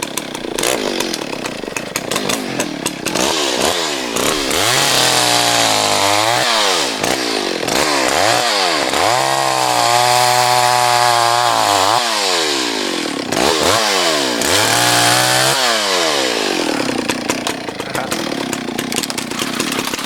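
A 60 cc Stihl chainsaw revving up and down again and again, held at full throttle for a second or two at a time as it cuts into a tree, then dropping to lower revs near the end.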